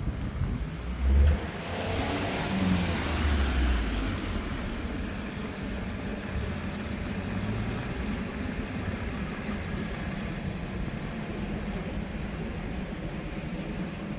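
Motor vehicle passing on a wet road: engine rumble and tyre hiss swell and fade over the first few seconds, with a short low bump about a second in. Steady road noise follows.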